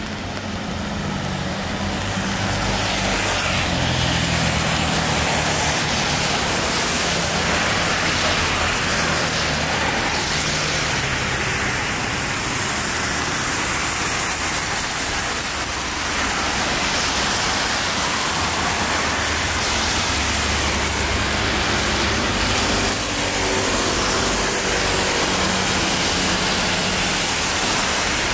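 Road traffic passing on a rain-wet road: engines running and a steady hiss of tyres. It grows louder over the first two seconds, then holds steady.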